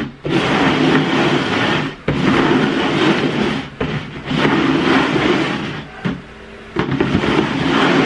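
Plastic bowls slid and shuffled across a tabletop: a loud rumbling scrape in several runs of one to two seconds, with short breaks between them.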